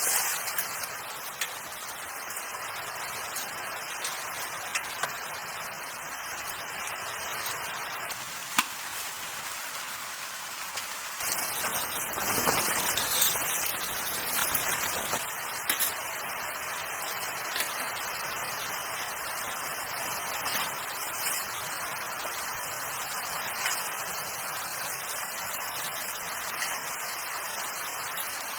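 Steady hiss of falling precipitation with scattered light ticks. It swells louder for a few seconds around the middle.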